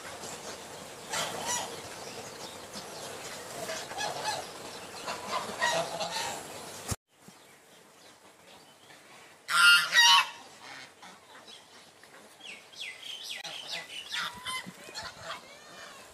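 Domestic geese honking on the water, with a loud double honk about ten seconds in that stands out above the rest. Quieter calls come and go around it, and the background drops abruptly a few seconds before the loud honk where the shot changes.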